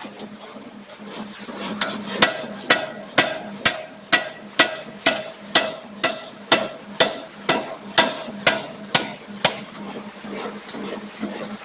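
A C41 560 kg pneumatic forging hammer strikes a hot bearing-ring blank. About two seconds in it starts a steady run of some seventeen blows at roughly two a second, each with a short metallic ring, and stops near the end. A steady machine hum runs underneath throughout.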